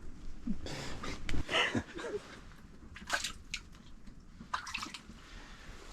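Light splashing and dripping of water, with a few sharp clicks and knocks about three seconds in and again near the end.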